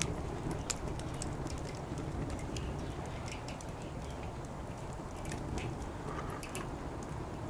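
Wood fire crackling, with scattered sharp pops at irregular intervals over a low steady background rumble.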